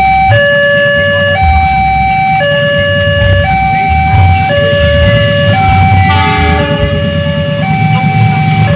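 Electronic two-tone warning signal sounding hi-lo, switching between a higher and a lower note about once a second. A brief extra pitched sound joins it about six seconds in.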